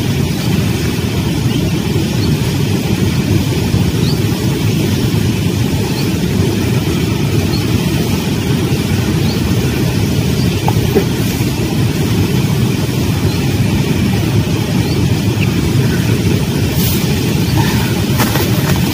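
Steady low rumble of outdoor background noise at an even level, with a few faint clicks near the end.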